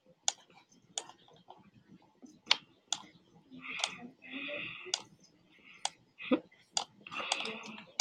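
Computer mouse clicks, sharp and irregular, about ten of them. A soft rasping noise comes in twice, about four and seven seconds in.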